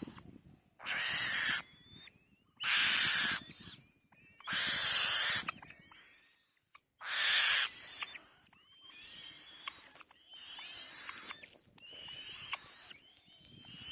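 Nestling birds calling in the nest: four loud, harsh hissing screeches of under a second each, with thinner whistled peeps in between and after.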